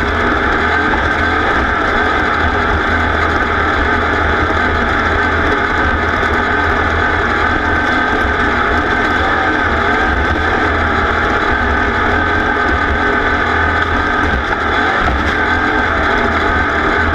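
Racing vehicle's engine running hard and steadily, loud and unbroken, with no let-up in revs.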